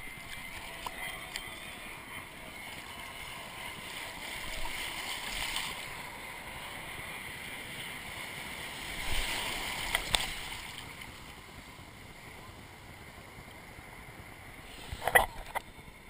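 Ocean surf washing and churning around a camera held at water level. The noise swells twice as waves pass and break over it, and there are a few brief loud hits near the end.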